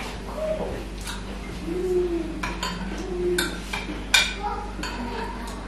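A metal spoon clinking against a ceramic mug about five times, short sharp clinks with a brief ring, as someone eats from it. A few short low sliding tones sound between the clinks.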